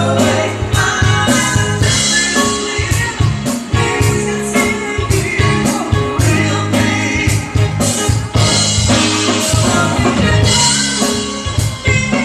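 A live band playing a pop-rock cover song, with drum kit, guitar and singing.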